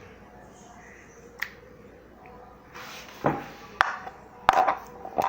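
Slime being handled, squeezed and stretched, with one click about a second and a half in and then a run of sharp pops and clicks in the second half.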